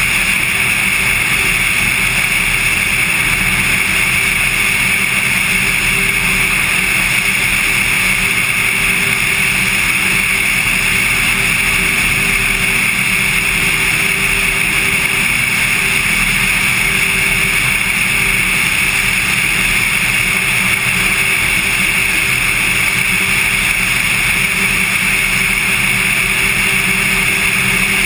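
Cessna 182 single-engine piston airplane in flight: engine and propeller drone at a constant pitch with a steady hiss of air.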